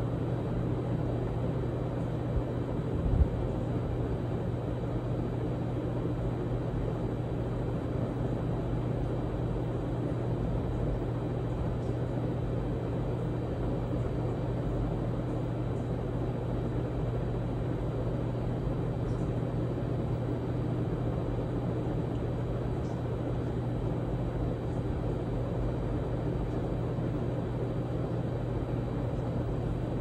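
A 52-inch Hunter Original ceiling fan with an oil-bath PSC motor and four blades running steadily. A low motor hum sits under the even rush of air from the blades. A single short knock comes about three seconds in.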